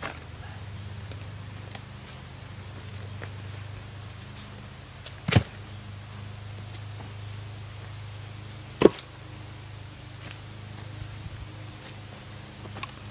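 Crickets chirping in a steady rhythm over a low steady hum, with two sharp knocks about three and a half seconds apart.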